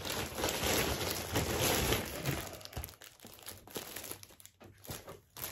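Packaging crinkling and rustling as items are unwrapped and handled. It is dense for about the first three seconds, then drops to a few scattered crackles.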